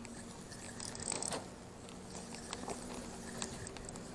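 Spinning reel being cranked to wind in line: soft, faint whirring with light clicks and scrapes from the reel and the rod handle.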